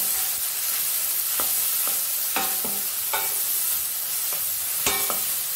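Chopped onions sizzling in hot oil in a stainless steel kadai while being stirred with a wooden spatula. The spatula scrapes and knocks against the pan several times, with the loudest knock near the end.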